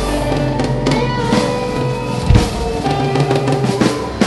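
Live band playing: electric guitars holding chords over a drum kit, with heavy drum hits about two seconds in and again near the end.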